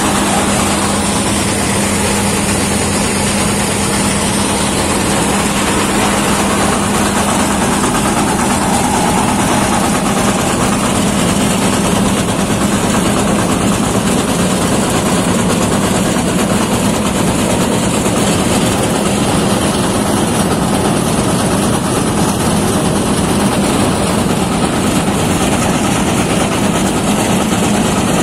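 New Holland combine harvester running steadily with its wheat header and reel cutting alfalfa: a constant loud machine drone with a steady low hum.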